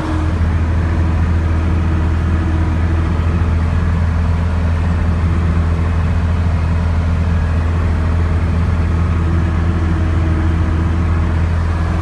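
Tractor engine running at a steady speed with a constant low hum, heard from inside the cab.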